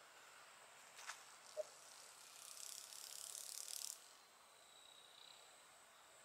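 A grasshopper's dry, high-pitched raspy buzz lasting about a second and a half, starting about two seconds in and cutting off sharply; a single faint click comes shortly before it.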